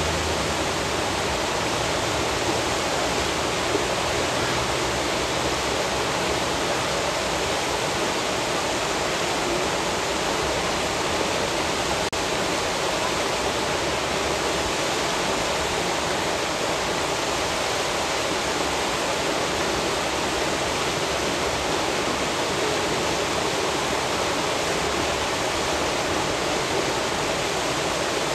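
Steady rush of churning water, an even noise without separate splashes or knocks.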